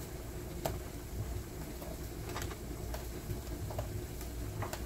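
Pieces of eggplant being set one by one into a frying pan with a little oil, giving a few scattered soft taps and clicks over a steady low hum.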